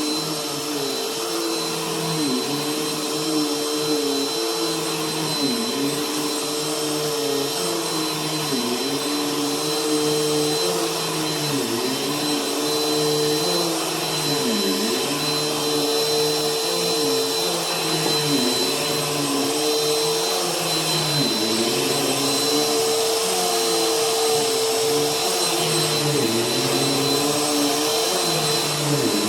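Bissell vacuum cleaner running steadily over carpet: a constant motor whine over airflow hiss, with a lower hum that dips in pitch and recovers every second or two.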